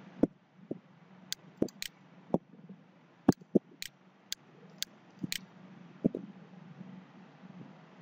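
Computer mouse clicking: a dozen or more short, sharp clicks at irregular intervals over a faint, steady low hum.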